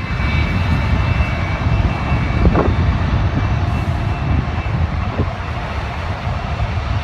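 Airbus A380 airliner's four jet engines running during landing: a steady low rumble with a faint high whine on top.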